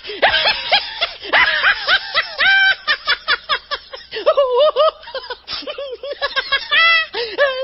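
Funny laugh sound effect: a person laughing in a high pitch, with quick, bouncing 'ha-ha-ha' bursts several times a second and a few short catches of breath between runs.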